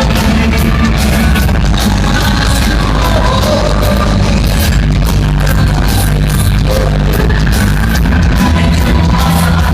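Loud dance music with a sung vocal and a steady beat, played over a sonidero sound system.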